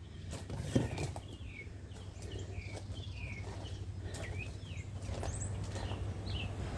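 Birds chirping in short, repeated calls with quick pitch glides, scattered throughout, over a steady low rumble.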